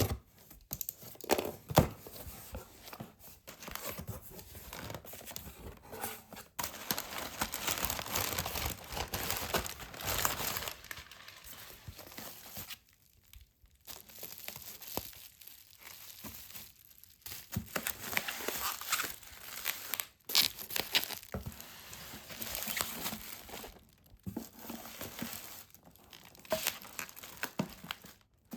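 Crinkling and tearing of packaging in irregular bursts with sharp clicks and brief pauses.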